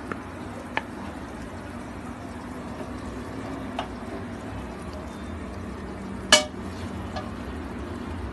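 A serving spoon knocking lightly against a pot and plate as food is spooned out: five short clinks, the loudest about six seconds in, over a steady low hum.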